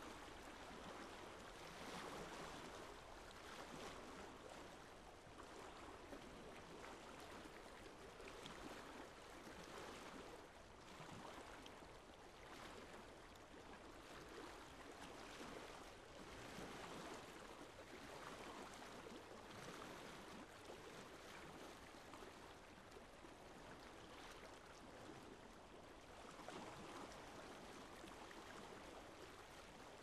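Small waves of lake water lapping, a faint wash that swells and eases every few seconds.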